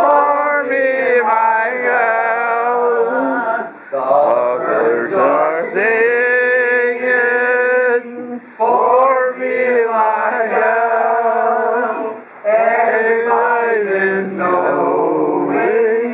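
A small group of men singing unaccompanied in harmony, with long held chords and short breaks between phrases.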